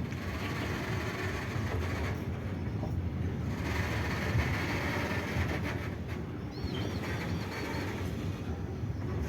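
Indian Railways goods train of container wagons rolling past: a steady rumble with rattling from the wagons.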